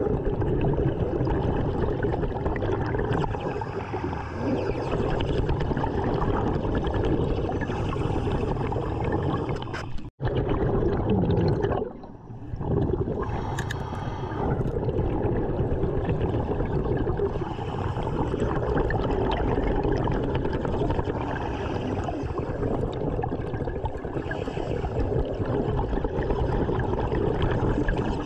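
Underwater bubbling and gurgling from a diver's exhaled air, a dense, steady wash of noise that cuts out suddenly for a moment about ten seconds in.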